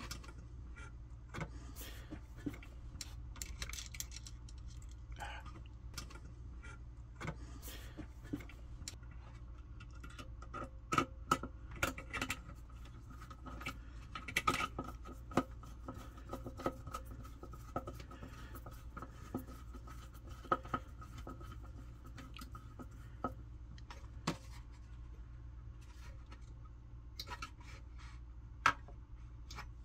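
Small scattered metallic clicks and light scrapes of a screwdriver and fingers working spade wire connectors and switch terminals inside a pressure cooker's base, with a cluster of sharper clicks about halfway through. A steady low hum runs underneath.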